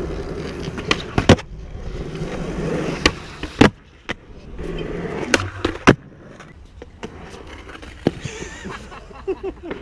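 Skateboard wheels rolling over concrete ramps with a steady rumble, broken several times by sharp clacks as boards slap and hit the concrete.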